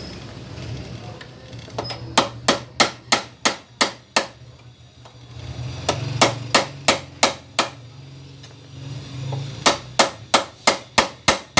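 Three runs of quick, sharp hammer blows, about four a second, on the Yamaha NMAX scooter's steering-head nut: about eight strikes, then five, then seven. The blows are tightening the upper steering-stem nut on the T-post.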